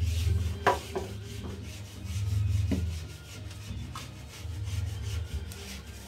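Rubbing and low rumbling handling noise in surges, with about three light knocks of things being moved about inside a refrigerator as it is emptied for cleaning.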